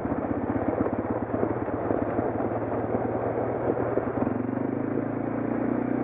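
Four-wheeler (ATV) engine running with a rapid, even beat while the tyres roll over a gravel road. About four seconds in, the engine note settles into a steadier hum.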